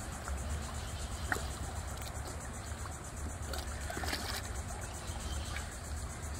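Water lapping and lightly splashing as a crowd of alligators jostle at the surface, with a few small clicks and splashes, over a steady low rumble.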